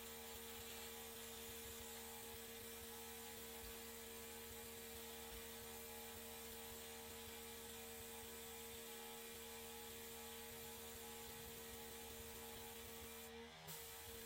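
A faint, steady electrical hum holding two even tones, broken briefly near the end.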